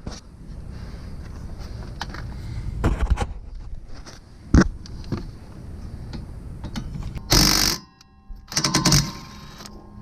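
Hand tools working the 12 mm bolt of the brake line bracket at a car's rear wheel hub: scattered metal clicks and clinks, with a short louder noisy burst about seven seconds in and another shortly after.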